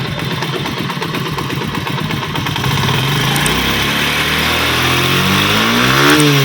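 CD 70-type single-cylinder four-stroke motorcycle engine idling with its tappet clearance freshly adjusted to cure a tappet noise. About halfway through it is revved: the pitch rises steadily, then drops back near the end.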